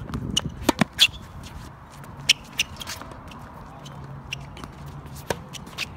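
Tennis balls being struck by rackets and bouncing on a hard court during a rally: a series of sharp pops and knocks, several in quick succession about a second in, then more spaced out.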